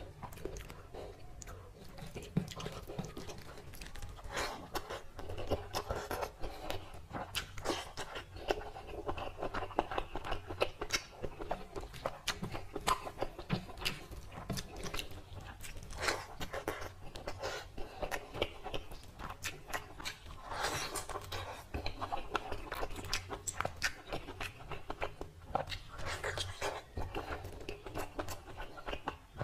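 A man chewing mouthfuls of mutton curry and rice, with wet smacking and frequent small clicks throughout.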